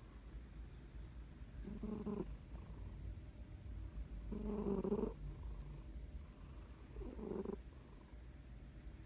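A sleeping cat snoring loudly: three separate rasping snores about two and a half seconds apart, each lasting under a second.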